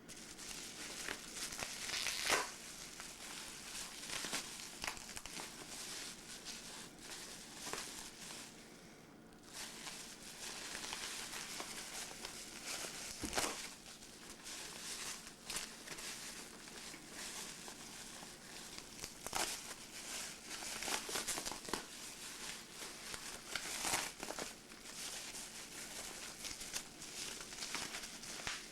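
Packaging being handled and torn open: continuous crinkling and tearing of wrapping, with frequent sharp crackles.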